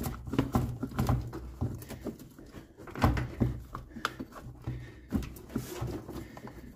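Irregular knocks, clicks and scrapes of a 40-year-old plastic heater box being rocked and pulled by hand to free it from the firewall and the heater-pipe grommets.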